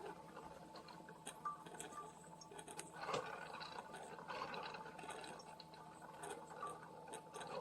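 Hamilton Beach FlexBrew Trio coffee maker faintly sputtering and dripping as it brews, with scattered small ticks over a faint steady hum. The machine is faulty and putting out only a drip.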